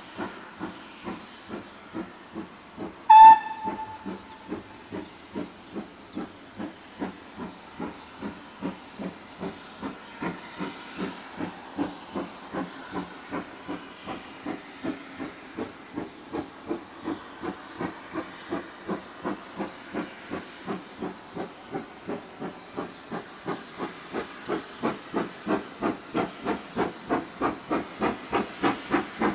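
Steam locomotive exhaust beats, about two a second at first, quickening to about three a second and growing louder as the engine draws near. One short, shrill whistle blast sounds about three seconds in.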